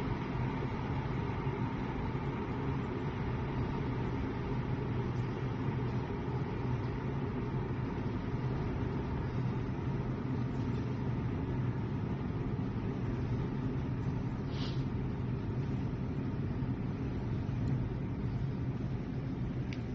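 Tuya smart electric kettle heating water close to the boil: a steady low rumble from the water. A brief high-pitched blip sounds about two-thirds of the way through.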